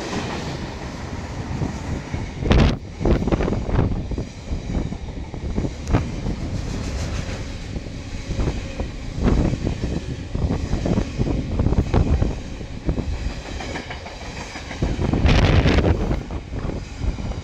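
Container wagons of a freight train rolling past close by: a continuous rumble with irregular knocks from the wheels, growing louder for about a second around fifteen seconds in.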